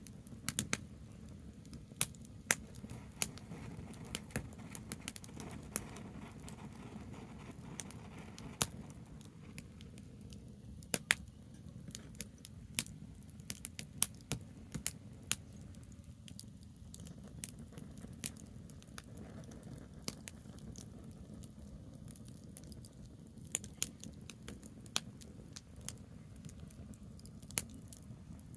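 Campfire of burning branches crackling, with irregular sharp pops and snaps over a steady low rumble.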